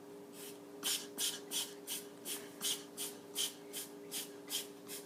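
A pet breathing in short, airy puffs at an even pace, nearly three a second, over a steady low hum.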